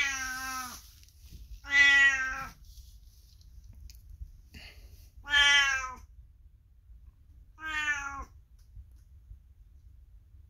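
A 22-year-old domestic cat meowing loudly: four drawn-out calls, one right at the start and others about two, five and a half and eight seconds in, each under a second long.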